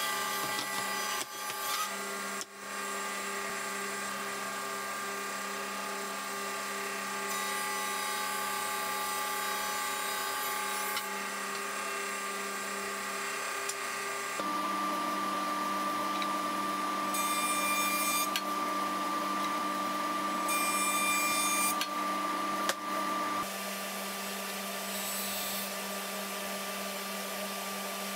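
An electric power tool runs steadily on wood. Its pitch shifts about halfway through and again a few seconds later.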